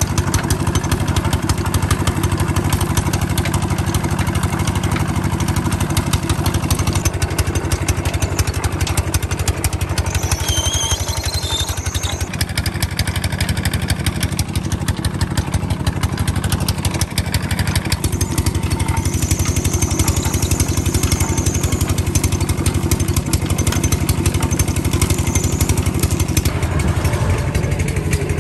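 Engine of a sugarcane crusher running steadily with a fast, even beat, driving the crushing rollers as cane stalks are fed in.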